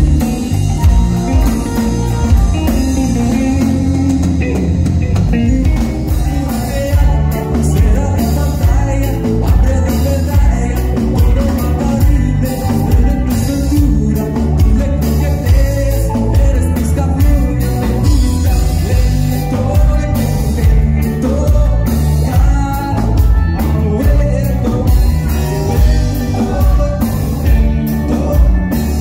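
Live pop-rock band playing: electric guitar, bass guitar, drum kit and keyboard over a steady beat, with a lead vocal singing over them.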